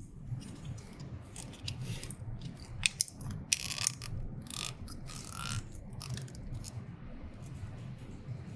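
Irregular small plastic clicks, taps and rattles from hands working the printer's magenta ink damper and ink syringe, over a steady low hum.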